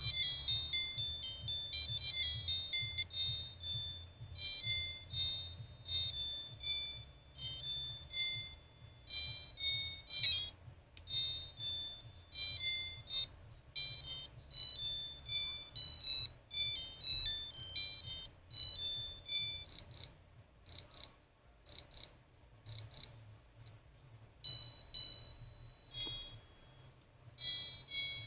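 Electronic doorbell melodies from a Soviet UMS7-02 melody chip, played as thin, high beeping notes through a small PC-case speaker. The tune breaks off and a different melody starts several times as the melody-select button is pressed.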